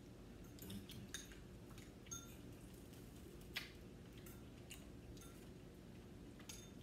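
Faint, scattered clinks and taps of chopsticks against bowls and dishes while eating, a few light strikes a second or more apart, with one slightly louder tap a little past the middle.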